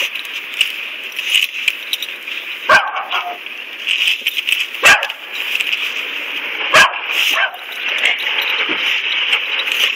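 A dog barking: three sharp single barks about two seconds apart, over a steady high hiss.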